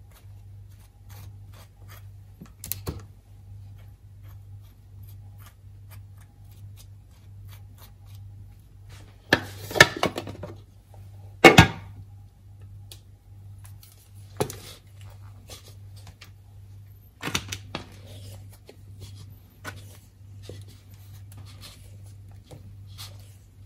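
A table knife scraping butter across slices of bread, followed by a cheese slicer shaving slices off a block of cheese. Small scrapes and clicks run throughout, with a louder rustling scrape and a sharp knock about halfway through as things are set down on the counter. A steady low hum runs underneath.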